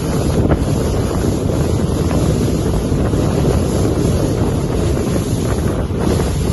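Salpa Soleil 23 motorboat under way: a steady low rumble of the boat and water, heavily buffeted by wind on the microphone.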